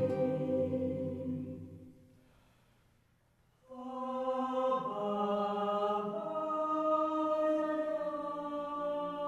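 Background music: one slow piece fades out over the first two seconds, then after about two seconds of near silence a second slow piece of long held, choir-like chords begins and moves through a few chord changes.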